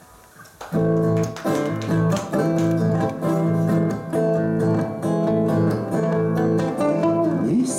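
Two acoustic guitars playing a strummed song intro, coming in together about a second in after a short quiet.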